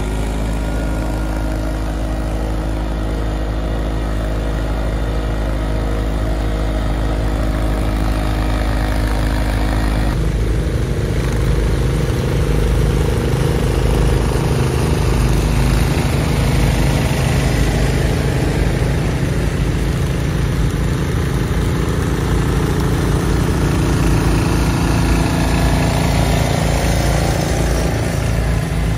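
Garden tractor engine running steadily; about ten seconds in its note changes to a rougher, more uneven sound that carries on.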